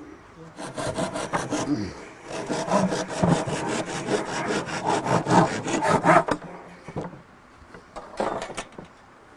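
Hand saw cutting wood in quick back-and-forth strokes, about five a second: a short run, a longer run through the middle, and a few strokes near the end.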